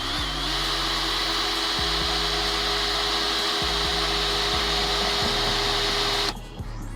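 Electric drill running at steady speed, boring a mounting hole for a side mirror into the steel door of a 1964 Chevrolet Impala, then stopping suddenly near the end. Background music with a bass line plays underneath.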